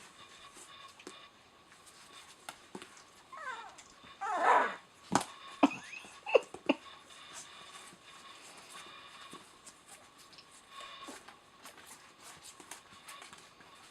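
Eleven-day-old Rottweiler puppies whimpering: a few short falling whines about three seconds in, then a louder whine, followed by a handful of sharp knocks and small squeaks. Faint scuffling clicks run underneath.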